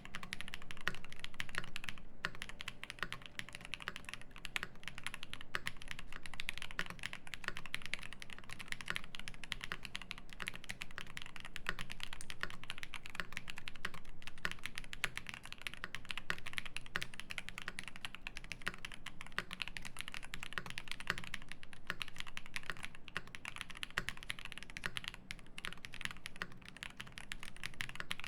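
Fast, continuous typing on a Phase One custom mechanical keyboard with lubed Zaku switches, an aluminium plate and GMK Noire keycaps. The keystrokes make a dense stream of crisp clacks.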